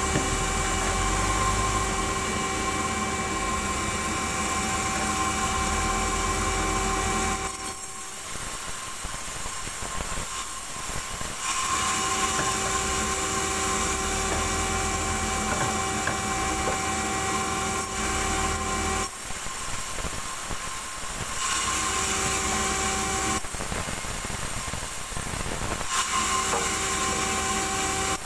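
Sawmill band saw running with a steady whine while timber is fed through the blade. The whine drops away three times for a few seconds and the overall sound dips a little each time.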